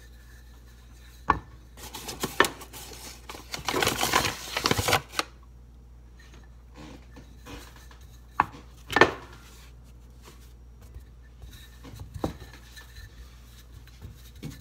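Wooden rolling pin working pizza dough on a board: a rough stretch of rolling and rubbing a few seconds in, and several sharp knocks as the pin is set down or bumps the board, the loudest about nine seconds in.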